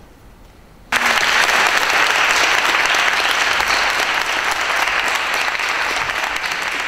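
Audience applause that starts suddenly about a second in, after a brief quiet, and carries on steadily, easing slightly near the end.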